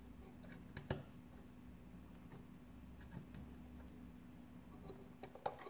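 A few faint, sharp clicks and light taps, the loudest about a second in and a small cluster near the end, over a low steady hum.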